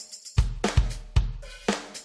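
Background music with a steady drum-kit beat: kick drum, snare and cymbals in a repeating pattern.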